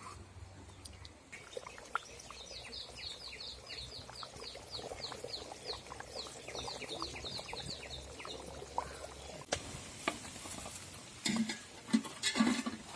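A run of rapid high chirps, about four a second, going on for several seconds with a short break, from a small animal. Near the end, a metal spatula scrapes and knocks against aluminium pots as cooked rice is scraped out.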